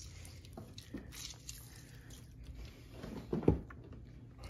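Food-preparation handling sounds at a kitchen counter: a few soft knocks, then a louder knock about three and a half seconds in.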